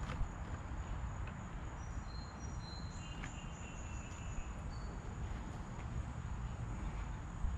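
Steady high-pitched drone of insects, with a few short high chirps about two to four seconds in, over a steady low rumble.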